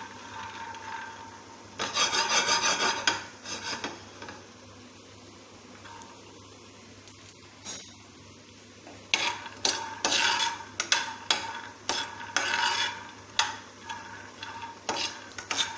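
Peanuts being stirred in a dry nonstick pan with a spatula while they roast, rattling and scraping against the pan in bursts: a spell about two seconds in, then repeatedly from about nine seconds on.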